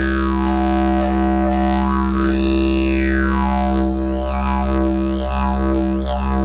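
Didgeridoo played as one unbroken low drone, its upper tone sweeping slowly up and down, then wobbling more quickly in the second half.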